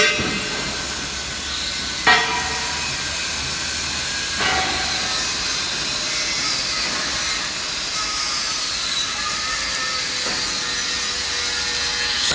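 Electric arc welding: a steady crackling hiss from the arc, with sharp flares at the start and about two and four seconds in. It cuts off abruptly at the end.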